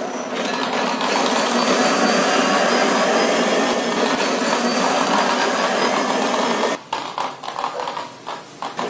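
Homemade spinning top whirring and rattling as it spins and scrapes around a plastic bucket lid. About seven seconds in the steady whir breaks up into irregular clattering.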